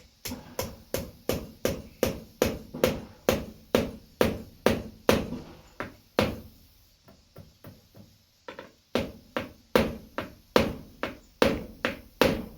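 Hammer driving small nails through the rubber pieces of a boot, in quick steady blows of about two or three a second. The blows stop near the middle, with one stray strike, then start again.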